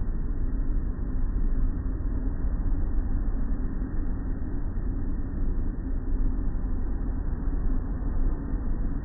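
Automatic car wash running, with water pouring over the car and the wash machinery rumbling, heard from inside the car's cabin as a steady low rumble.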